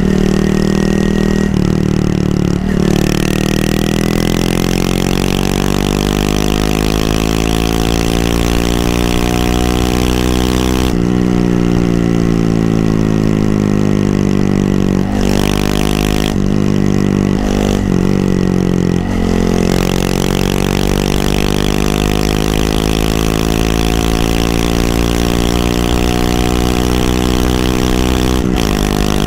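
Honda Monkey 125's single-cylinder engine running under way, its note climbing slowly in pitch and dropping sharply several times.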